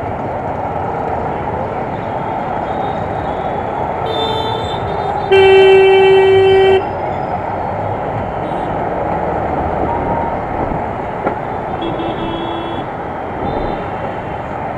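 Vehicle horns honking in dense city traffic over the steady wind and road noise of a scooter ride. A short honk comes about four seconds in, then a loud, steady honk lasting about a second and a half, and another shorter, fainter honk near the end.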